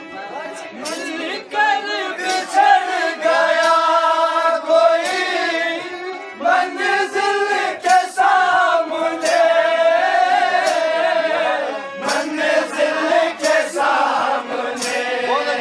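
Voices singing a ghazal, with long held and bending notes, accompanied by a hand-held tambourine that is struck and jingled now and then.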